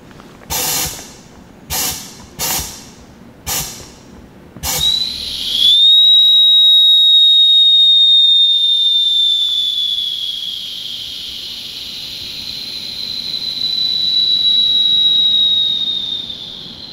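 Five short hisses of oxygen released through the bypass valve of a closed-circuit oxygen breathing apparatus. About five seconds in, a steady high whistle starts and keeps sounding: the apparatus's low-pressure warning alarm, which goes off as the pressure falls to about 5–6 MPa.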